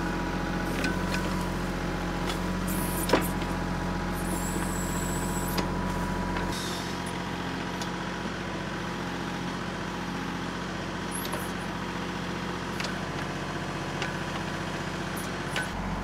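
24-horsepower TYM 2515 compact tractor's diesel engine running steadily while its backhoe digs around a tree stump, with a few sharp knocks from the bucket working among the roots. The engine note shifts a little over six seconds in.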